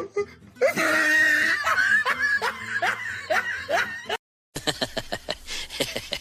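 A person laughing in a run of short, squealing bursts. After an abrupt cut, a fast run of short clicks and squeaky sounds.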